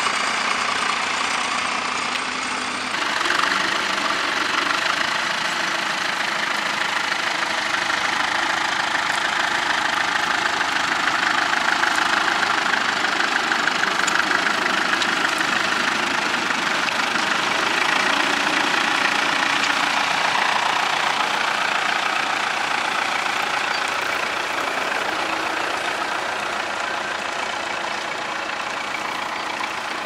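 Vintage Massey Ferguson tractor engine running steadily under load as it pulls a mounted plough through stubble. The engine sound shifts about three seconds in, where the shot changes from another tractor ploughing.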